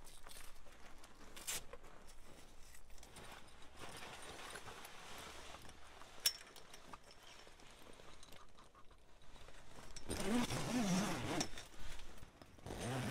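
Heavy canvas annex wall rustling as it is fitted and zipped to an awning, with scattered small clicks and a sharp click about six seconds in. A louder stretch of handling noise comes about ten seconds in.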